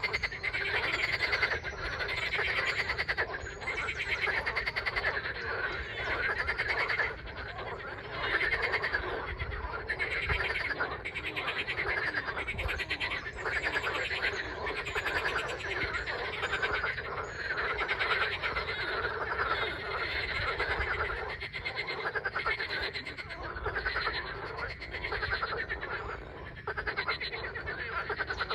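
A dense chorus of many frogs calling at once, a continuous mass of rapid pulsing croaks and trills without a break.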